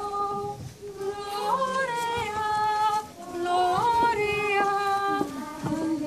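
Singing: a slow melody of long held notes, sliding briefly up or down from one note to the next.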